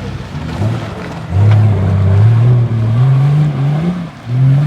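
Off-road 4x4's engine revving hard under load, its pitch climbing in steps from about a second and a half in, dropping off briefly near the end and then rising again.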